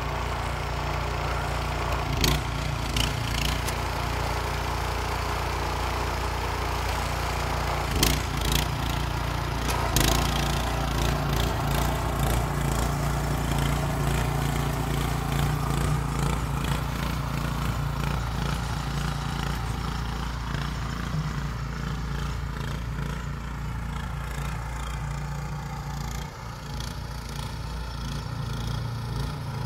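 Small engine of a two-wheel walking tractor running steadily under way while it tows a spreader over tilled soil, with a few sharp knocks in the first ten seconds. The sound grows fainter in the second half as the tractor moves away.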